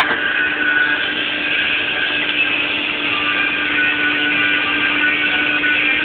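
Combine harvester running steadily, heard from inside the cab: a constant machine drone with a steady low hum.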